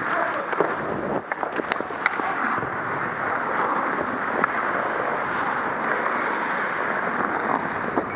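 Hockey skate blades gliding and scraping on ice, with air rushing over the microphone of a camera worn by a moving skater. Scattered sharp clicks and clacks of sticks and puck are heard throughout.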